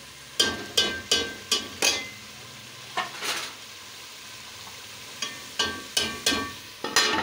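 Steel ladle stirring chicken curry in an aluminium pot, clinking and scraping against the metal sides in short runs of ringing strikes: about five in quick succession, two more around three seconds in, then another run near the end. Beneath the strikes the curry bubbles steadily at the boil.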